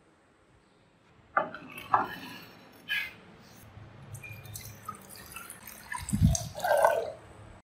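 Water poured in a thin stream into a glass baking dish, splashing and trickling on the glass. Three sharp knocks come first, about a second apart, and a dull thump sounds near the end.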